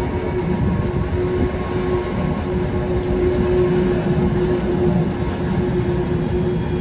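Flåm Railway passenger train running on a curving mountain track: a steady rumble of the carriages and wheels on the rails, with a steady whine over it.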